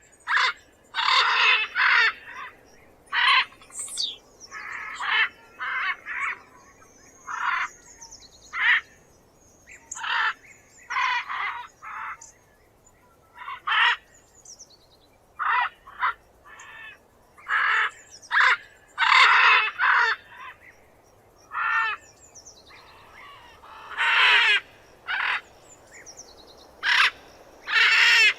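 Macaw screeching: a long series of harsh, raspy squawks, some single and some in quick runs of two or three, a second or so apart. Faint thin high whistles sound behind them in the first few seconds.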